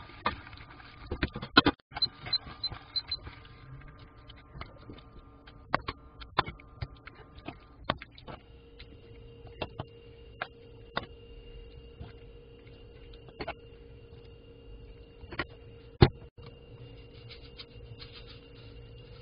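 Chopsticks clicking and scraping against a pan and a serving dish as saucy braised food is stirred and transferred, in scattered sharp taps. There is a louder knock about a second and a half in and another near the end. A faint steady hum joins about eight seconds in.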